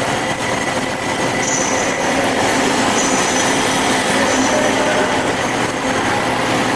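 Band saw running with a steady, loud machine noise, and short high whines coming and going over it.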